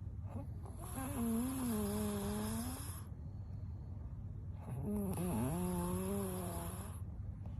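A sleeping woman snoring: two long snores about four seconds apart, each lasting about two seconds, with a wavering pitch.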